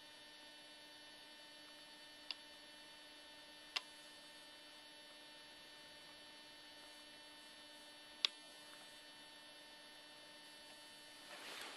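Near silence with a faint, steady electrical hum, broken by three faint clicks.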